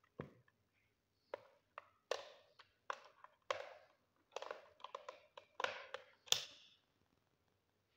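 Type 56 (AKM-pattern) rifle handled as a steel magazine is worked into its magazine well: a string of irregular metallic clicks and clunks, the loudest and sharpest click near the end.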